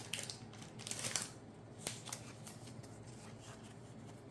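Faint handling sounds of Pokémon trading cards: a few light taps and rustles as cards are picked up and laid onto piles on a playmat, mostly in the first two seconds.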